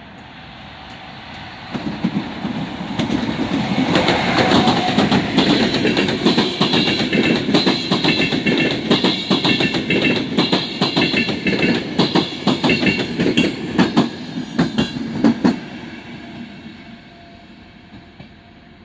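Express passenger train hauled by an EU44 electric locomotive passing at speed close by. The sound swells about two seconds in as the train arrives, then the coaches' wheels clatter over the rail joints in quick clicks, and it fades after about fifteen seconds as the train draws away.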